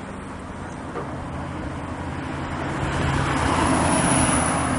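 An engine running with a steady low hum under a broad rushing noise, growing steadily louder over the first three seconds and then holding.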